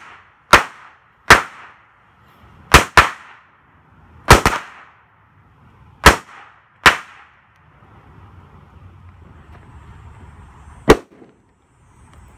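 A strip of Cutting Edge Fireworks Mighty Crackers firecrackers going off one after another at irregular intervals: about nine sharp bangs, some in quick pairs, with the fuse fizzing between them. The last bang comes near the end, several seconds after the others.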